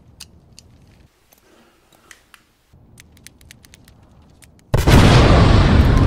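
A few faint clicks, then a sudden loud explosion about four and a half seconds in, going on as a heavy, sustained rumble.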